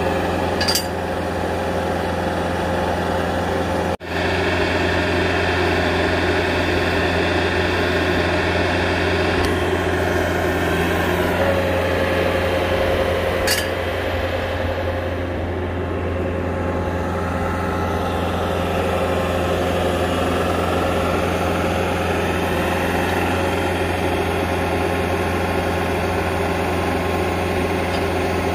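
Bobcat compact track loader's diesel engine running steadily under load, powering the hydraulic driver that turns a steel ground screw into the ground. Two brief ticks, one about a second in and one about halfway.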